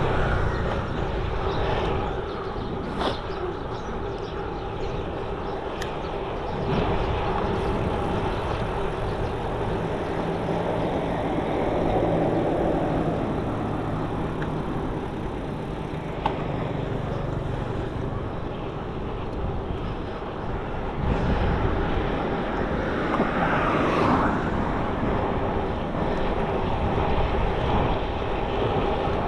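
Steady road and wind noise from a moving bicycle in traffic. A motor vehicle's engine hums alongside for several seconds in the first half, and another vehicle swells past about three-quarters of the way through.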